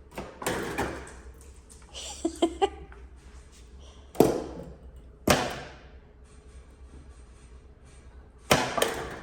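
A run of knocks and thuds: a softer scuffle and rattle in the first few seconds, then three sharp bangs about four, five and eight and a half seconds in, each dying away quickly.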